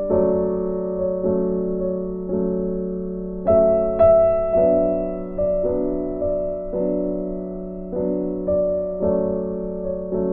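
Background music: soft piano or electric-piano chords struck about once a second, each note ringing and fading.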